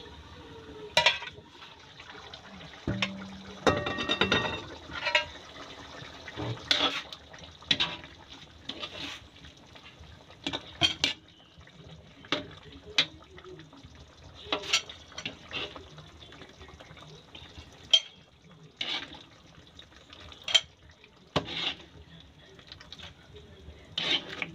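A spatula knocking and scraping against a large aluminium wok as a simmering tomato-sauce stew of chicken and potatoes is stirred. The knocks come irregularly throughout, over the bubbling of the sauce.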